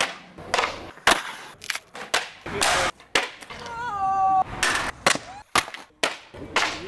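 Skateboard on concrete: a string of sharp cracks and clacks as the board is popped, lands and slaps down, with wheels rolling between the hits. A short high wavering squeal sounds about four seconds in.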